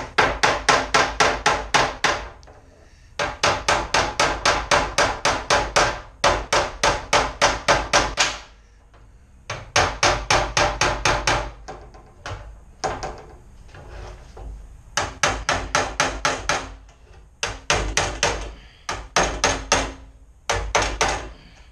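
Hammer banging on the sheet-metal media blaster cabinet: quick runs of strikes, about five a second, with short pauses between the runs, the metal ringing under each blow.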